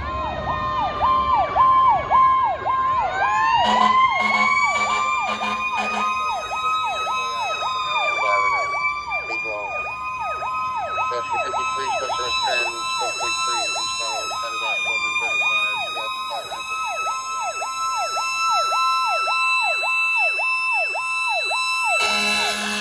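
A fire engine's fast-cycling electronic siren, about two cycles a second, with a Federal Q2B mechanical siren spinning up about three seconds in to a high peaked wail that is then held. Air-horn blasts sound between about four and six seconds and again near the end, as the engine draws close.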